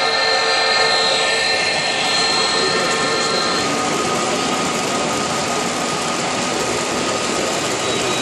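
Three-rail O-gauge model trains running on a layout: a steady rush of wheels and motors on metal track. Several held steady tones ride over it and stop about three and a half seconds in.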